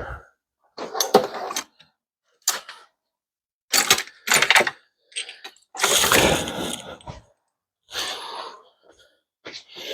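Metal hand tools and transmission hardware clinking and clattering in a string of short, irregular bursts, the longest about six seconds in, lasting over a second.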